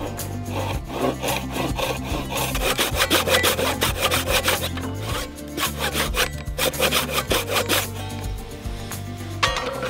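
Handsaw cutting through a wooden mallet handle in quick back-and-forth strokes, with a short pause about halfway through.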